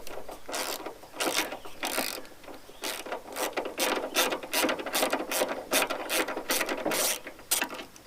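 Socket ratchet with a 10mm socket clicking in short, repeated bursts, about two to three a second, as a plastic nut is unscrewed.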